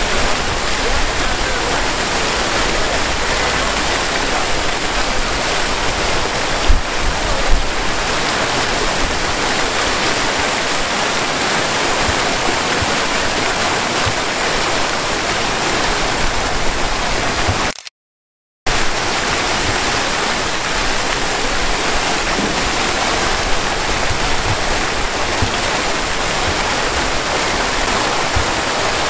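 Two-tiered fountain with many water jets splashing steadily into its basin, a constant rushing wash of falling water. The sound cuts out completely for about a second about two-thirds of the way through.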